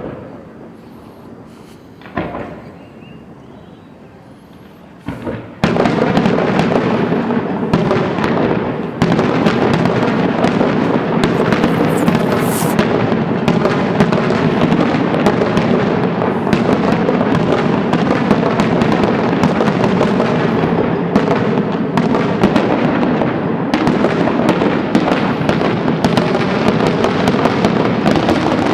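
Fireworks display: a few separate bangs, then about five seconds in a dense, continuous barrage of rapid bangs and crackle that keeps going without a break.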